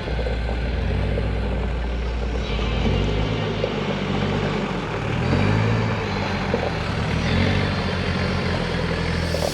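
4x4 engine running at low speed, its revs rising and falling repeatedly as it works over a rough, rocky off-road track.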